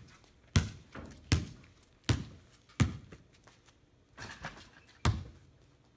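Basketball dribbled on a stone patio: four sharp bounces about three-quarters of a second apart. During the dunk attempt there is a softer noise about four seconds in, then one more thud shortly after five seconds.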